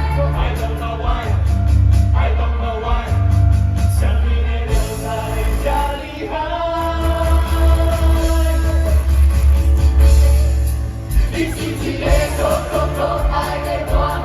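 A song with a steady bass and drums, sung in a bending melody.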